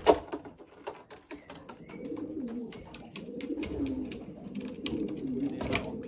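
Racing pigeons cooing over and over in low, wavering coos, with a sharp clap right at the start and scattered light clicks and taps throughout.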